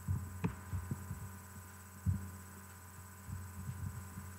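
Steady electrical hum from a home computer recording setup, with soft, irregular low thumps and one sharper click about half a second in, typical of desk and computer-mouse handling.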